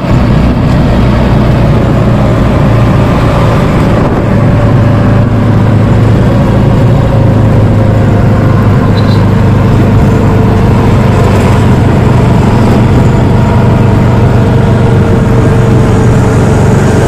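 Motor vehicle engine running steadily, loud and close, its hum slowly dropping a little in pitch.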